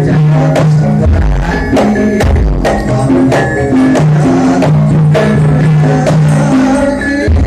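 Live Javanese gending music: regular drum strikes about twice a second under repeating pitched melody notes and a held low note.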